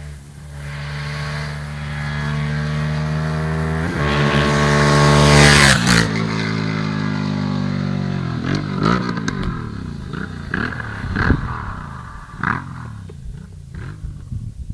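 Aprilia Shiver 750's 750 cc V-twin engine revving. Engine speed climbs to a loud peak, drops sharply about six seconds in, then falls away gradually with a string of sharp pops.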